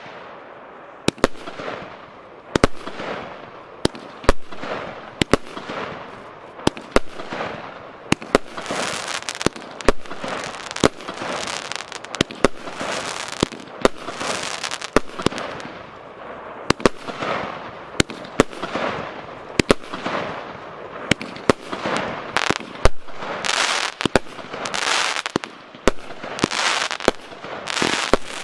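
Piromax PXC205 Boson 5in1 firework battery firing its 25 mm shots in quick succession: sharp bangs about once a second, each trailed by a fading spell of hiss and crackle from the bursting stars.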